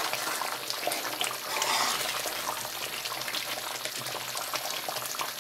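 Thick chicken curry gravy simmering in a kadai and being stirred with a metal ladle. It makes a steady wet bubbling with many small pops, a little louder about two seconds in.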